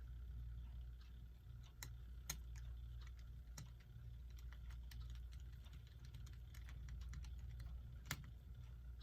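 Irregular light clicks and taps of small plastic parts being handled and fitted as a quartz clock movement's circuit board is put back in, over a low steady hum.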